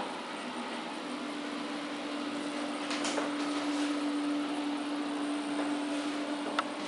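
Room tone with a steady low hum over a hiss, a few faint ticks about three seconds in and one sharp click near the end.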